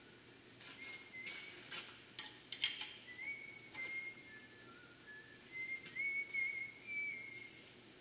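A man whistling a tune in held notes that step up and down in pitch, with a few sharp metal clicks and scrapes in the first three seconds as a thin hand tool works against the clamped exhaust manifold.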